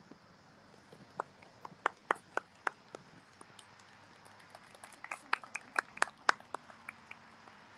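A scatter of short, sharp taps at an uneven pace, a few in the first three seconds and a denser run about five seconds in.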